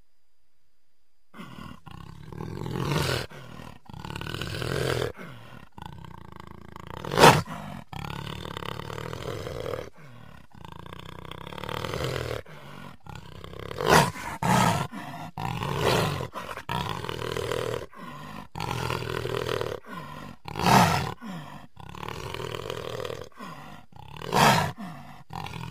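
Jaguar roaring in a run of repeated calls after about a second of silence. Some calls are short, sharp and loud, others longer.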